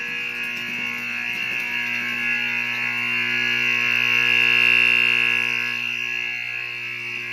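Simplex 4040 6-volt AC vibrating fire alarm horn, fed through a 120 V to 6 V transformer, sounding one continuous harsh buzz. It swells louder about halfway through and eases back toward the end.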